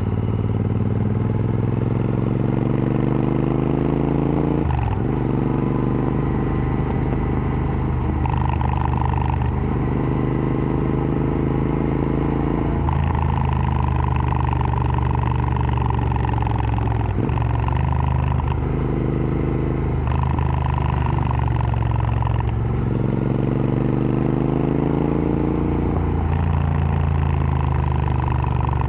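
Royal Enfield Interceptor 650's parallel-twin engine through an aftermarket AEW TE 102 exhaust, accelerating under way. The pitch climbs steadily, then drops sharply at each gear change, several times over.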